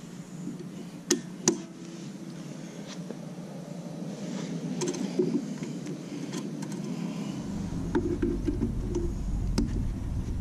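Light metallic clicks and clinks of motorcycle foot peg hardware being handled as the pin goes through the peg mount, with two sharper clicks close together about a second in. A low steady hum starts about seven seconds in.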